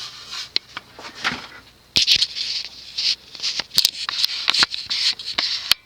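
Rustling and scraping with scattered sharp clicks, quiet for the first two seconds and then nearly continuous until it stops just before the end.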